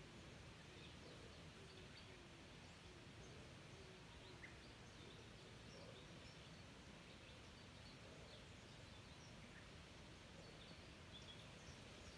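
Near silence: faint outdoor background noise with scattered faint, high bird chirps.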